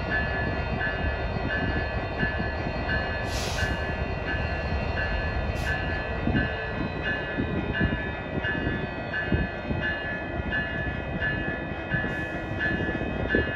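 A freight train rumbling past with a bell ringing steadily over it, about one and a half strokes a second, and a few short hisses and thumps.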